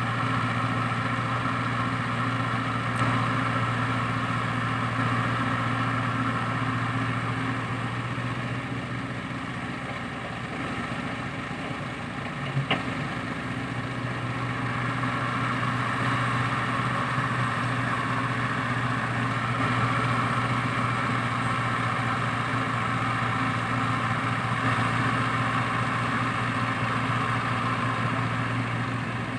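A heavy-machinery diesel engine running steadily, easing off a little near the middle and picking up again, with a single sharp click about halfway through.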